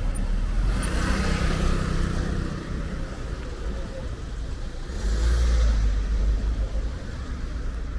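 Road traffic: motor vehicles passing close by, one swelling about a second in and another about five seconds in, with engine rumble and tyre hiss.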